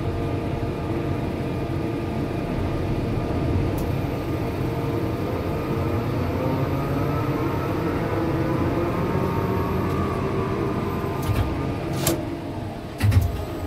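Tower crane's electric drives running as the crane slews, heard in the cab: a steady mechanical hum with faint whining tones that slowly rise and fall. A few sharp clicks come near the end.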